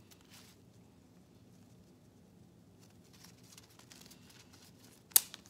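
Faint rustling of artificial leaves being handled, then one sharp snip near the end as the cutters go through a fake leaf sprig's wire stem.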